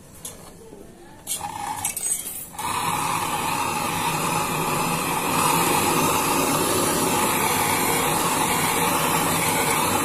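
Brazing torch flame hissing steadily against the filter-drier joint of a refrigerator's pipework, heating the joint to unbraze the leaking filter for replacement. A short burst of flame noise comes about a second in, and the steady hiss starts about two and a half seconds in.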